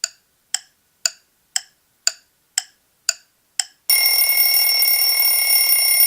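A clock ticking about twice a second, eight ticks, then an alarm clock bell ringing steadily from about four seconds in.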